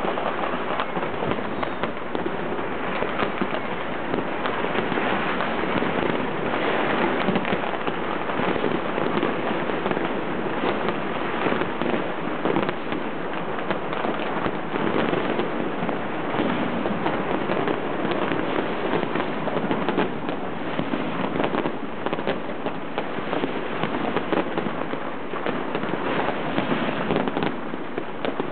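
Fireworks and firecrackers going off in many places at once: a dense, unbroken crackle of pops and bangs.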